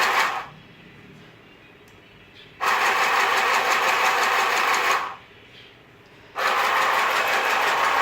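A two-speed electric sewing machine stitching fabric in three runs. It stops twice for a second or two between runs.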